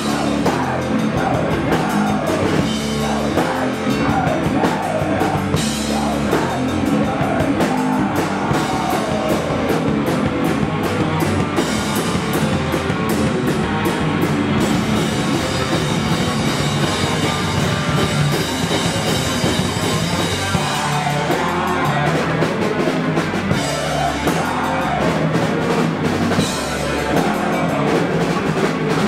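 Live doom/sludge metal band playing: heavily distorted guitar and bass over a drum kit, with a woman singing at times.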